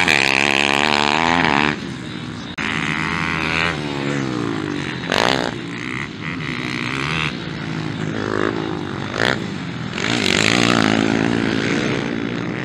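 Motocross bike engines revving hard on a dirt track, the pitch climbing and dropping as the riders open and shut the throttle through the jumps, in several surges one after another.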